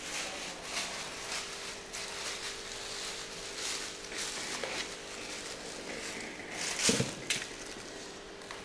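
Clear plastic bag crinkling and rustling as it is handled, in irregular crackles with the loudest about seven seconds in, over a faint steady hum.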